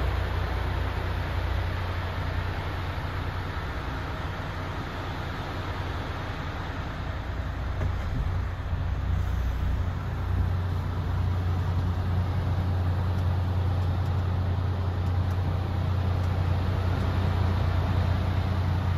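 MAN TGX 26.440's 440 hp Euro 6 straight-six diesel idling, a steady low hum heard from inside the truck's cab.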